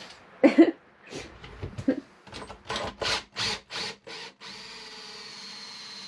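Ryobi cordless drill driving a hole saw into a wooden butcher-block countertop. A knock, then a string of short trigger-pulsed bursts, then from about four and a half seconds in the drill runs steadily with a high whine as the saw cuts.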